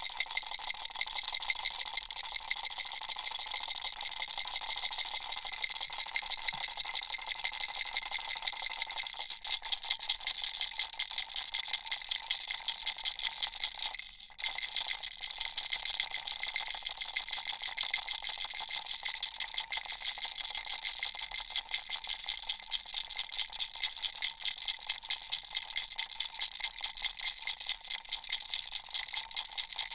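Baby rattle shaken steadily: a dense, rapid rattling with a faint ringing tone through it, breaking off for a moment about halfway through.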